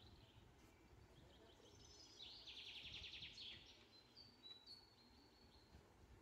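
Faint recorded birdsong from a chirping sound effect: a fast trill of rapid high notes about two seconds in, lasting about a second, followed by a few short high chirps.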